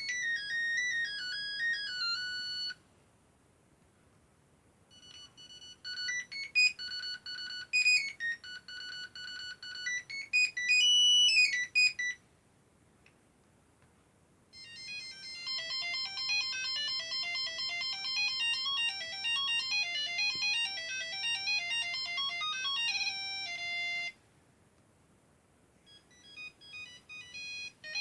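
Nokia 3110 mobile phone ringtones, one melody after another, each made of single beeping notes. One tune ends about three seconds in, a second plays after a short silence, a faster one follows, and another begins near the end.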